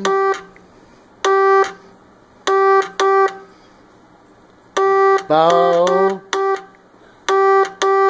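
Morse code practice oscillator sounding a buzzy tone through its speaker box, keyed by hand on a telegraph key in slow, uneven dots and dashes.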